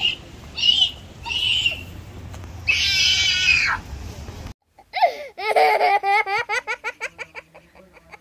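A voice giving a few short high-pitched squeals and a longer wavering one. After a sudden cut, it laughs in a rapid run of giggles that speed up and fade.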